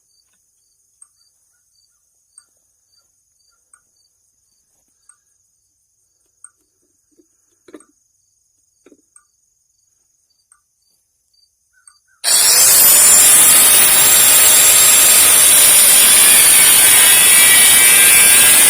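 Faint, regular cricket chirps, then about two-thirds of the way in a power tool starts cutting into the steel of a water heater: a loud, steady grinding with a high metallic screech.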